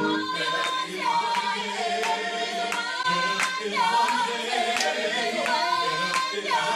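Gospel vocal ensemble singing a cappella in close harmony, several voices holding long notes and sliding between pitches.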